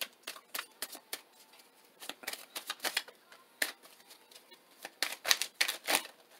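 Tarot deck being shuffled by hand: a run of irregular quick card flicks and taps in clusters, loudest about five to six seconds in.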